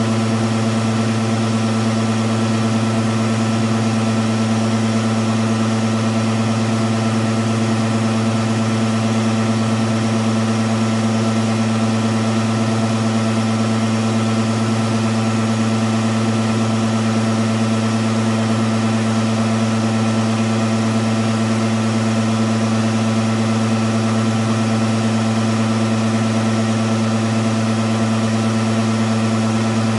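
Hematocrit centrifuge rewired with a thyristor and DIAC speed regulator, its motor spinning the capillary-tube rotor at steady speed during a 5-minute blood-spin run. A constant low hum that does not change in pitch or loudness.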